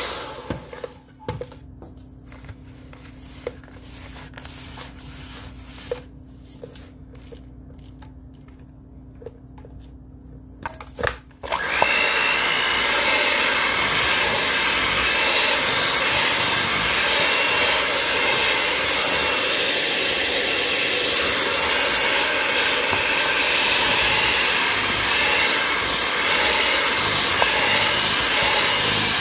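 Electric mixer running, cutting off about half a second in. For about eleven seconds there is a much quieter low hum with a few light clicks, then the mixer starts again and runs steadily at full noise.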